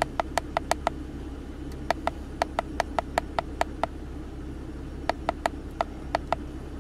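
Keypad presses on a KONNWEI KW310 OBDII scan tool as its arrow button is pressed again and again to scroll a list. They come as short, sharp ticks about five a second, in three quick runs with pauses between, over the steady low hum of the car's engine idling.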